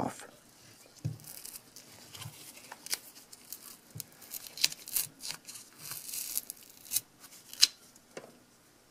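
Rubber grip cover being peeled off a Canon EOS 6D camera body, its adhesive letting go with soft, irregular tearing and crackling and a few sharp clicks.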